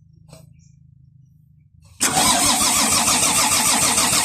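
Volvo D6D diesel engine being cranked by its starter motor. The cranking cuts in suddenly about two seconds in and turns over steadily, with a fast rhythmic pulse, without firing. The engine cranks but won't start, which the mechanic traces to air in the fuel system that needs bleeding.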